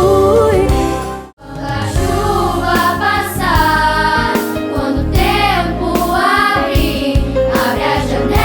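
Choir singing with instrumental accompaniment; the music cuts out for an instant about a second in, then starts again.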